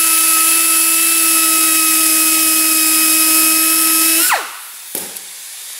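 Die grinder with a burr bit running at a steady high pitch while grinding a groove into a polypropylene bumper cover. About four seconds in it is released and its pitch falls quickly as it spins down.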